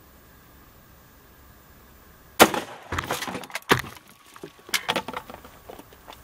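A single shot from an AR-15 rifle in .223 with an 18-inch barrel, sharp and loud, about two and a half seconds in. The gel block and wooden frame boards it hits are knocked down, clattering and knocking for the next few seconds.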